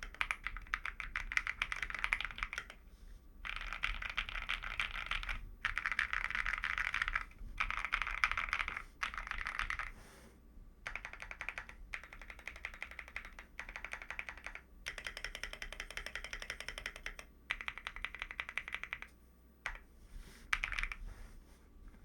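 Fast typing on an AKKO ACR98 mechanical keyboard with lubed Gazzew Boba U4T tactile switches, PE foam and a three-layer tape mod. It comes in runs of a second or two with short pauses between them, and the typing is softer from about halfway through.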